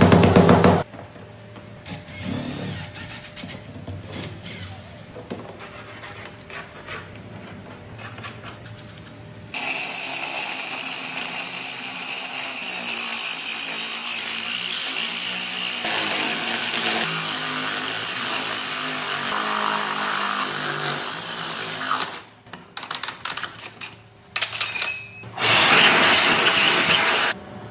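Power drill running, mostly in one long steady run of about twelve seconds with a high whine, then in several short bursts and one more run near the end. Background music plays underneath.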